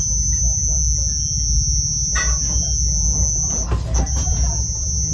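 A steady low hum with a continuous high-pitched whine over it, broken briefly about four seconds in, under faint, indistinct voices.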